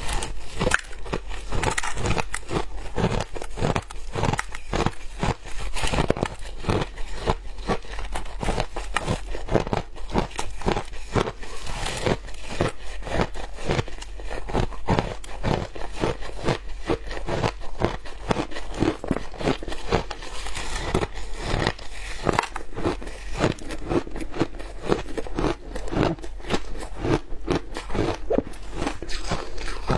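Shaved ice being bitten and chewed close to a clip-on microphone: a dense, continuous run of crunches, several a second. A gloved hand also grabs at the ice in the bowl.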